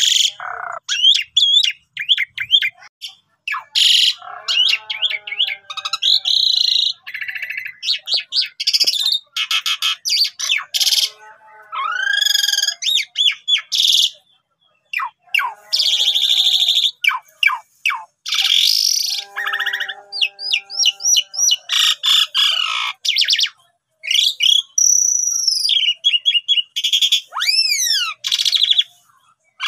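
Pied starling (jalak suren) singing a long, varied, almost unbroken song of quick sweeping whistles, harsh rasping chatter and lower throaty notes, with two arching whistled glides near the end.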